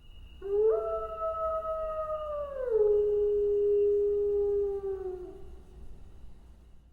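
A single long wolf howl. It swoops up at the start and holds a high note, then slides down about two and a half seconds in to a lower held note that tails off and fades.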